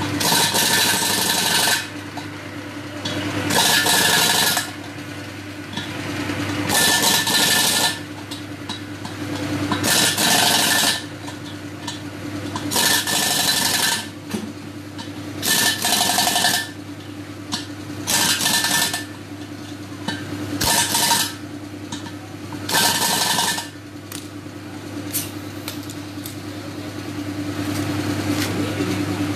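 Pneumatic impact wrench run in short bursts, about nine of them a couple of seconds apart, tightening the bolts of a walking tractor's front wheel rim. A steady low hum runs underneath.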